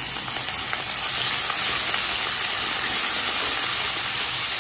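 Crushed ginger and garlic sizzling in hot oil in a steel kadai, stirred with a wooden spatula; the sizzle gets louder about a second in and then holds steady.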